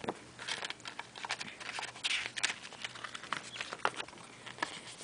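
Paper leaflet being handled and leafed through, rustling and crinkling with many small clicks, a louder rustle about two seconds in.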